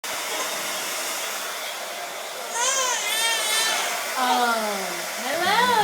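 Hair dryer blowing steadily, with a baby squealing in high, wavering tones about two and a half seconds in and vocalizing again near the end.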